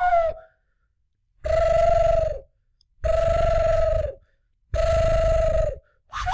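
A person imitating an animal call with their voice: three high, held notes of about a second each, separated by short silences, each dipping slightly in pitch as it ends. A quick warbling trill begins just at the end.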